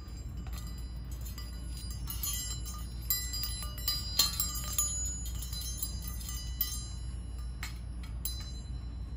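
Handmade poodle wind chime ringing: flat metal poodle cut-outs knock against the striker and against each other, giving irregular high tinkling strikes that ring on, thickest about two to five seconds in and again briefly near the end.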